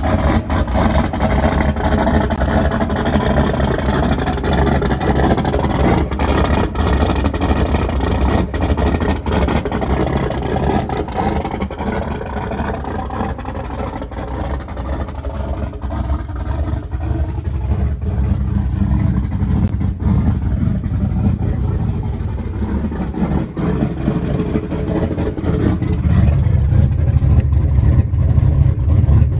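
Turbocharged 383 stroker small-block Ford V8 idling after a cold start, free of the metal-on-metal rocker tap it had before, with a couple of small exhaust leaks. It gets louder and deeper near the end.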